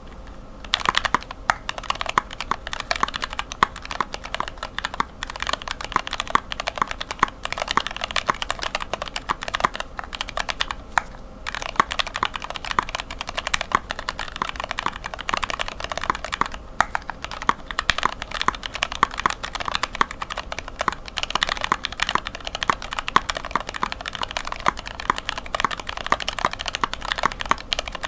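Close-miked typing on a mechanical keyboard with linear switches: Greetech black stems and tops in retooled Cherry PCB-mount black lower housings, lubed with Tribosys 3204 and fitted with 72 g springs. Fast, steady keystrokes start about a second in, with two brief pauses, one about a third of the way through and one just past halfway.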